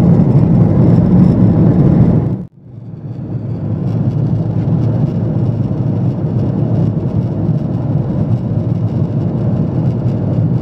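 Boeing 777 cabin noise: the steady, loud roar of the engines and airflow heard from a window seat. About two and a half seconds in it cuts out abruptly, then fades back up to the same steady roar.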